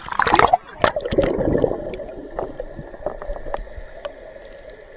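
Water splashing: a loud noisy splash in the first half second and another sharp one about a second in, then smaller splashes and gurgling that die away.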